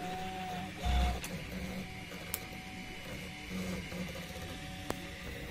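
3D printer's stepper motors running in short moves, each a brief whine that bends slightly in pitch, over a steady low hum. A dull thump comes about a second in, and sharp clicks come near the middle and near the end.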